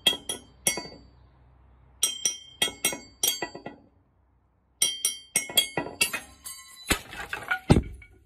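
A small glass beer bottle struck over and over, giving ringing clinks in quick runs of several taps with short pauses between. Near the end comes a burst of clatter and a heavy thud.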